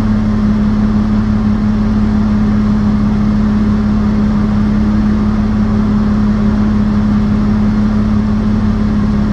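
Mercedes-Benz W202 C280 drift car's engine idling steadily, an even unchanging hum heard from inside the stripped cabin.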